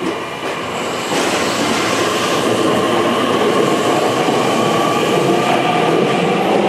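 Tokyu Ikegami Line electric train pulling out of the platform: traction motor whine over wheel and rail noise, growing louder about a second in and then holding steady.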